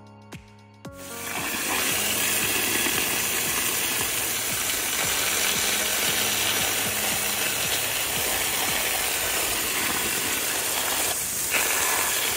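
Garden hose on a jet nozzle spraying hard into a muddy hollow to wash the soil out (hydro-digging): a steady hiss of spray and splashing water that starts about a second in. Background music with a beat plays in the first second and carries on faintly under the spray.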